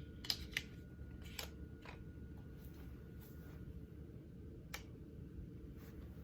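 Centerpoint Wrath 430 crossbow being shot: a sharp snap about a third of a second in, then a second sharp crack a moment later, followed by a few faint clicks.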